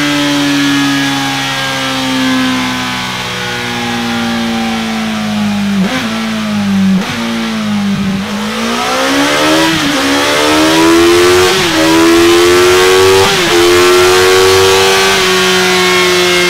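Honda CB1000R's inline-four engine running through a Delkevic 14-inch oval carbon-fibre silencer on a dyno. The revs ease down for about half the time with a couple of brief breaks, then climb again in three steps, each with a short dip, and hold steady near the end.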